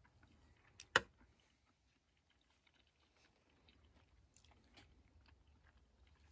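A person eating pit-baked chicken: a single sharp click about a second in, then faint, irregular chewing.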